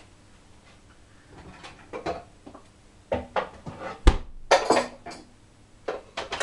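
Kitchen clatter of bowls and utensils being handled on a counter: scattered knocks and clinks, a sharp thump about four seconds in, then a quick flurry of clattering.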